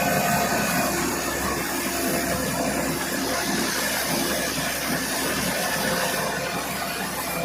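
Rice threshing machine running steadily while rice sheaves are pushed into it, giving a continuous mechanical whir and hiss.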